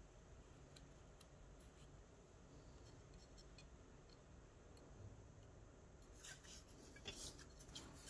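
Faint handling of graphics-card packaging: scattered light clicks, then about six seconds in a couple of seconds of rustling and scraping.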